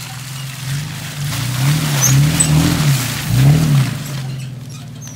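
Off-road 4x4 truck's engine revving up and down about four times in quick succession, loudest in the middle, then easing off near the end.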